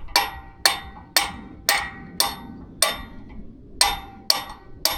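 Hammer striking steel with a ringing clang, about two blows a second with a short pause midway, driving a pin out of a sprayer boom.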